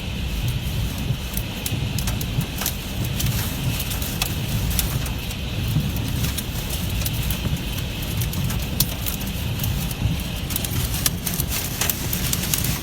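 Summer thunderstorm: wind buffeting the microphone with a low rumble, under steady rain and scattered sharp ticks of hailstones striking hard surfaces.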